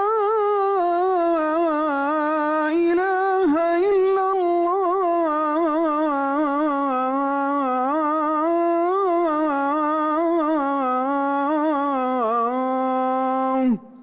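A muezzin's solo voice chanting the adhan, the Islamic call to prayer: one long drawn-out phrase of 'ash-hadu an lā ilāha illa-llāh', its pitch winding up and down in melismatic ornaments. The voice cuts off near the end and a short echo fades after it.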